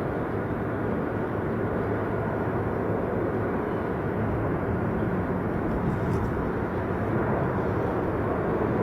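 Airliner jet engines, a steady rushing rumble.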